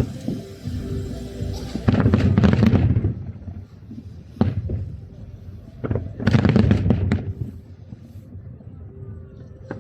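Aerial fireworks bursting in rapid volleys of bangs: a dense cluster about two seconds in, single bangs around four and a half and six seconds, then another dense volley.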